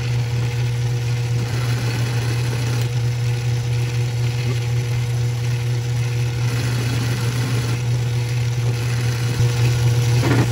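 Small metal lathe switched on and running steadily, its motor humming, while a high-speed steel tool turns down a steel pin, which the machinist suspects is slightly hardened. Slightly louder near the end.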